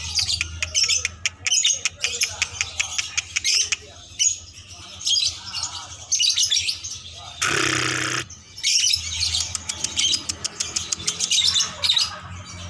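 Lovebird chattering in rapid runs of high chirps and trills, broken by a short rushing noise a little past the middle.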